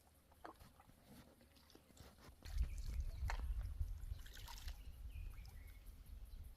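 Canoe paddle strokes in the river, with water trickling and sloshing and a few light knocks. About two and a half seconds in, a low rumble sets in and stays louder than the water.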